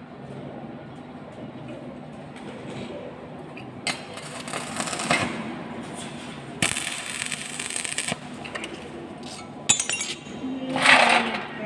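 Arc welding: a few bursts of crackling hiss, each a second or two long, then sharp metallic clicks and clinks, over a steady low hum.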